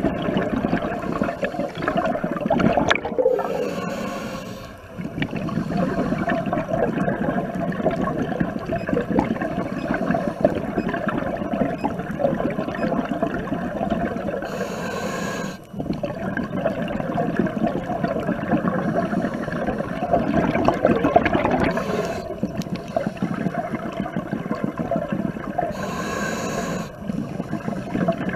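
Scuba regulator breathing underwater: a steady rush of bubbling exhaust, broken three times, about every eleven seconds, by a short hissing inhale.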